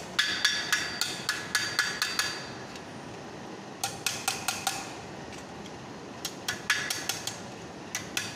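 Small hammer riveting a sheet-metal job on a steel anvil stake: quick runs of light metallic strikes, about four a second, with a short ringing note after each. The strikes come in three bursts with short pauses between, and a few more near the end.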